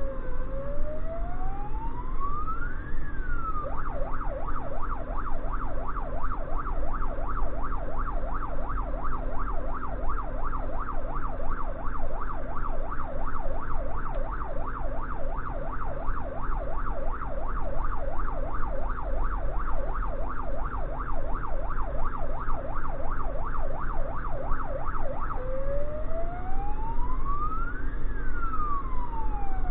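Electronic siren of an emergency truck, heard from inside its cab over the engine's steady drone: a slow rising-and-falling wail that switches a few seconds in to a fast yelp, then goes back to the slow wail near the end.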